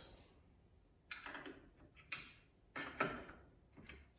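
A hand tool clinking on metal while bolts holding a power feed unit to a milling machine are undone: five or so sharp metallic clicks at irregular intervals, each with a short ring.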